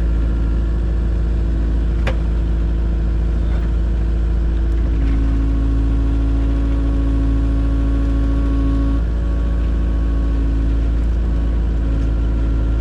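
A large engine running steadily. Its hum grows stronger from about five seconds in until about nine seconds in, and there is a brief click about two seconds in.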